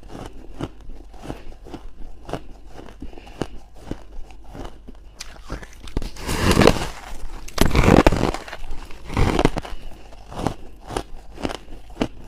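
Soft, powdery white freezer-frost ice being bitten and crunched close to the microphone: a run of short crisp crunches, growing louder and denser through the middle for a few seconds before settling back to lighter bites.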